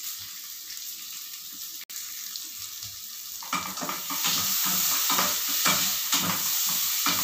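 Diced red bell pepper sizzling in butter in a nonstick frying pan. About three and a half seconds in, a spatula starts stirring and scraping the pieces across the pan in quick strokes, and the sizzle grows louder.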